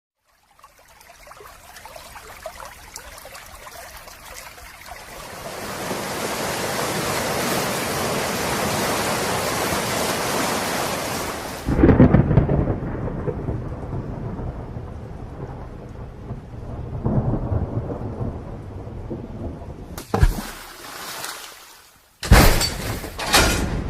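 Thunderstorm sound effect: rain builds from light to heavy, then a loud thunderclap breaks in about halfway through, followed by rolling thunder over steadier rain. Near the end a sudden loud crash starts.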